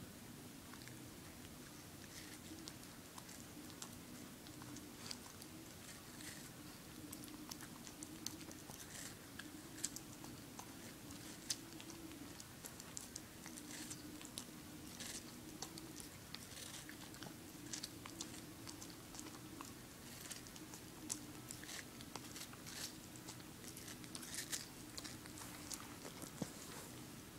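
A small dog biting and chewing into a slice of watermelon held out by hand: quiet, irregular crunching bites, with a faint steady hum underneath.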